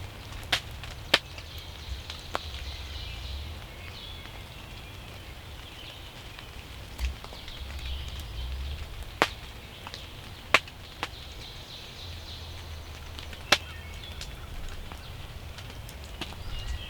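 Faint songbirds chirping in spring woods, with scattered sharp clicks or snaps, about eight of them at uneven intervals, over a low steady rumble.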